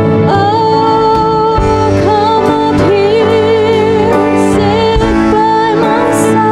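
Live worship song: a woman singing held notes with vibrato over sustained keyboard chords.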